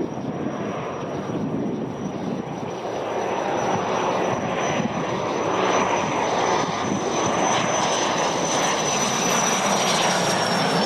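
Cessna Citation CJ1 business jet's twin Williams FJ44 turbofans whining as it rolls along the runway. The rush and high whine grow louder as it approaches, and the whine drops slightly in pitch as it passes, near the end.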